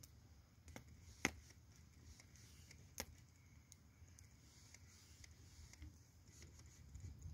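Wood fire in a fire pit crackling: a few scattered sharp pops over near quiet, the loudest about a second in and another about three seconds in.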